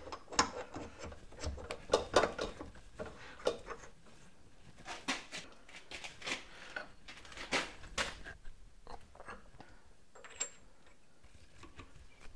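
Scattered light metal clicks and knocks as a step pulley on a mandrel is handled and fitted into a milling machine's drill chuck, busier in the first few seconds and sparse after that.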